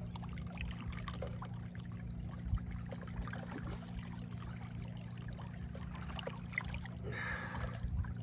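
A boat motor idling with a steady low hum, under light water splashing and trickling against the hull, with a brief burst of splashing about seven seconds in.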